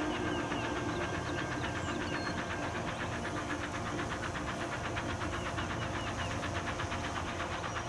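Norfolk & Western 611, a Class J steam locomotive, approaching at speed: a fast, even run of exhaust beats, about ten a second, blended into a steady rush.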